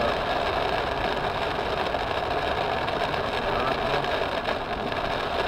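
Heavy rain and water pouring over a car's roof and windshield, a steady rushing patter, with the car's engine running underneath, heard from inside the closed cabin as the car drives through deep flood water.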